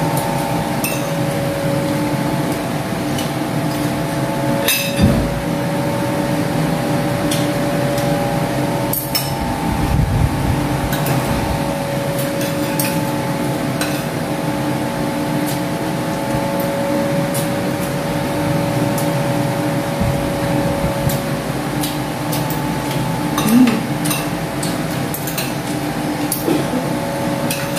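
Spoons and forks clicking and scraping on ceramic plates as two people eat, in many short irregular clinks, over a steady hum of several held tones.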